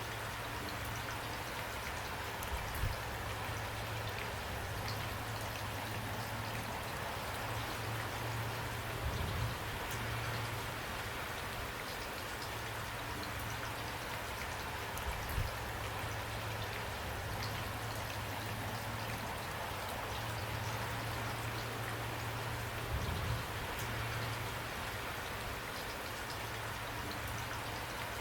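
Steady rain falling, an even hiss of many drops with a low rumble underneath. A few dull low thumps stand out about four times, spaced several seconds apart.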